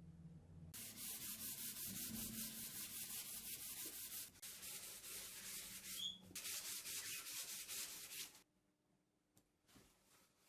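Sandpaper being rubbed on wood in rapid back-and-forth strokes: a dry, scratchy rasp with two brief pauses. It stops about two seconds before the end, leaving only a few faint light rubs.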